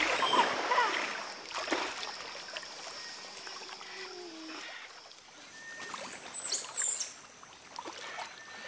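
Water sloshing and splashing softly as giant otters swim at the surface, with a few short high calls; the loudest stretch of splashing and calling comes about six to seven seconds in.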